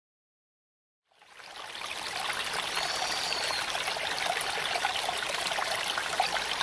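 Small waves washing up on a sandy shore, a steady rushing wash that fades in after about a second of silence.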